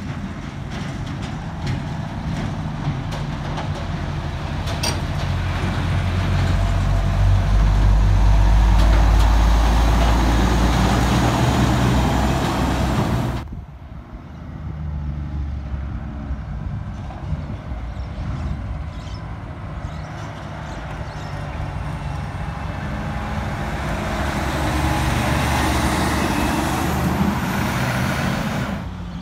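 Heavy diesel semi-trailer trucks driving past. The first truck's engine grows louder and peaks about nine seconds in. After an abrupt cut halfway through, a second truck with a tipper trailer approaches and passes, loudest near the end.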